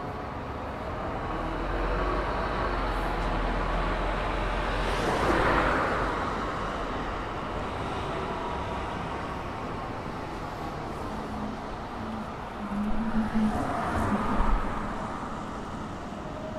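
Night street traffic: a car passes, swelling and fading about five seconds in, and a second vehicle passes near the end with a brief low hum and a few bumps.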